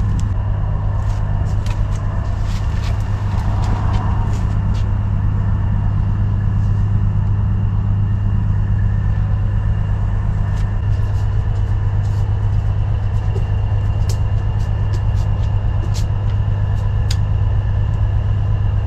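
A steady, loud low hum of a running motor, unchanging throughout, with a few faint clicks on top.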